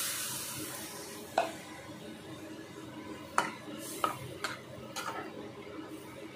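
Flat metal spatula stirring a thin curry in a kadhai, with about five sharp clinks and scrapes against the pan at irregular intervals, the loudest about a second and a half in. A hiss from the water just poured into the hot pan dies away in the first second.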